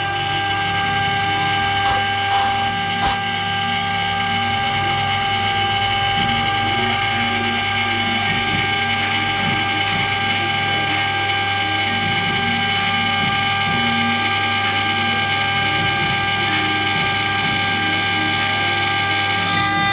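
Spindle of a mini CNC machine running steadily with a high whine while milling a lock pocket in an aluminium door profile, with a few sharp clicks in the first three seconds.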